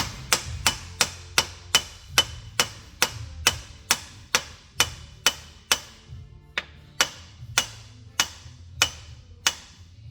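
A hammer tapping metal in an even run of about two dozen sharp strikes, two to three a second, each ringing briefly, as a part is driven into a cast iron gear-driven transfer case during reassembly. A few strikes are lighter about two-thirds of the way through, and the tapping stops shortly before the end.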